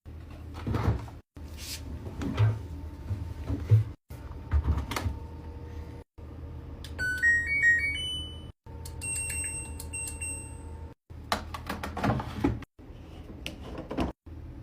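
LG washing machine control panel sounding a rising run of electronic beeps about halfway through, like a power-on chime, then further steady button beeps. Around them are clicks and knocks of handling the machine over a low hum, and the sound cuts off briefly every couple of seconds.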